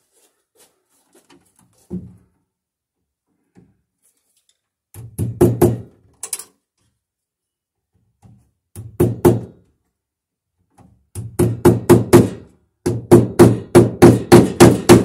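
Hammer driving cable staples over a 10/3 Romex cable into a wooden plank wall, in quick runs of blows: a short run about five seconds in, another around nine seconds, then longer runs of about four or five blows a second near the end.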